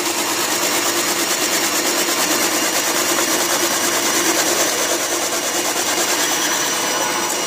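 Silvercrest SKM 550 B1 food processor running steadily with its fine shredding disc, shredding carrot. Its motor makes a constant hum and a high whine.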